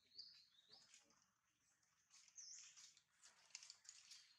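Faint high-pitched animal squeaks, a few short calls sliding up or down in pitch, with a few soft clicks.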